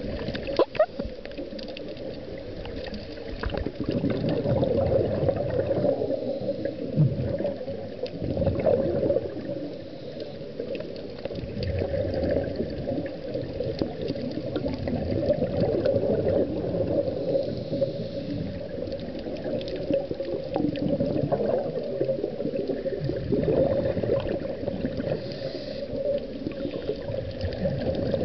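Muffled underwater noise heard through a camera's waterproof housing: gurgling of scuba divers' exhaled regulator bubbles, swelling and easing every few seconds, with scattered clicks and a sharp knock about a second in.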